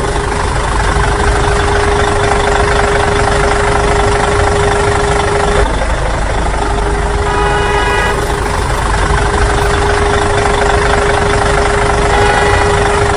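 Steady engine-like running of a small DIY mini tractor, with a constant whine that drops out for about a second midway. Short pitched sounds come in briefly twice: about seven seconds in and near the end.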